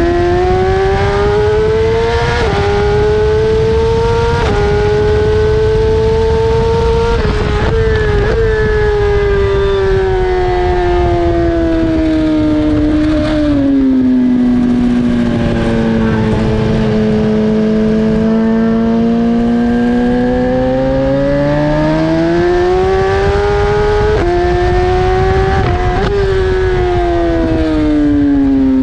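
BMW S1000RR's inline-four engine at racing speed: it revs up through several quick upshifts, dies down as the bike slows for a corner, and then pulls back up through the gears before falling away again near the end. A constant low rushing noise runs underneath.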